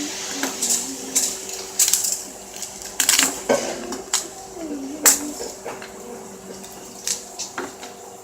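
Snow crab shells being cracked and snapped apart during eating, a string of sharp irregular cracks and clicks, several close together about three seconds in and a loud one about five seconds in.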